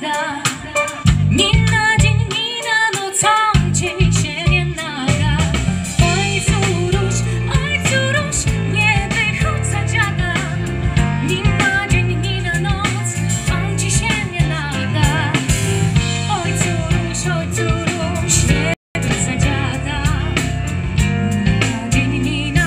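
Live band music through an outdoor PA system: a woman singing over guitar and keyboard with a steady bass line and beat. The sound drops out for a split second about two-thirds of the way through.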